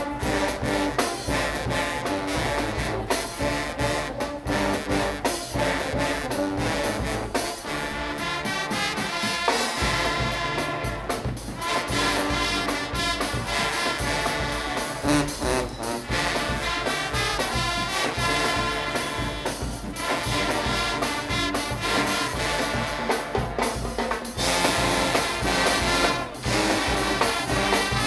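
Guggenmusik band playing: loud brass (trumpets and trombones) over drums and percussion, continuous throughout.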